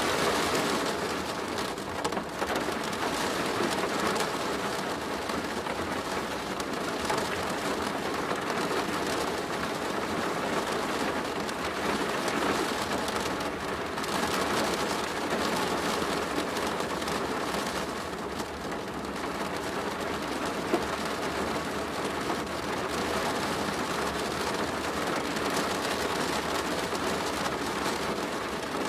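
Steady rain falling on a plastic roof: an even patter of many drops with no pauses.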